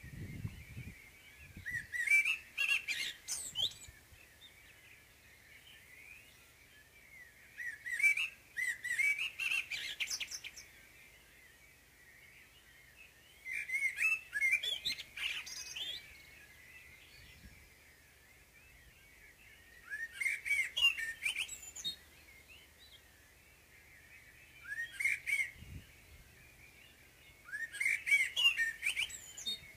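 Common blackbird singing its morning song: six separate phrases about two seconds long, one every five or six seconds, each a warbled phrase running into high twittering.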